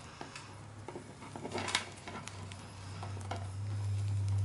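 Hands rustling a small fabric sweatshirt and working the plastic limbs of an action figure as it is dressed: scattered light clicks, with one sharper click about two seconds in. A low hum underneath grows louder near the end.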